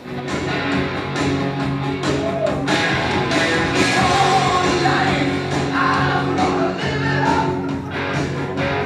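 Rock music with a singing voice, guitar and a steady drum beat.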